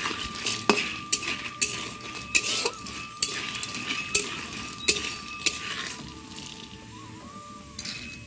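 Metal spatula stirring and scraping frying badi (sun-dried lentil nuggets) in a black iron kadai, with repeated sharp clinks against the pan over a light sizzle of oil. The clinks come thickly for about six seconds, then thin out.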